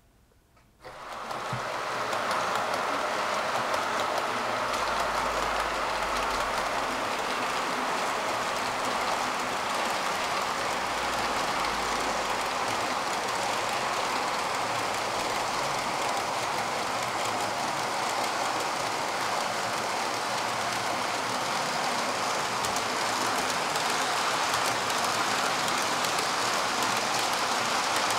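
Model train running along the track: a steady rolling rush of wheels on rail that starts about a second in.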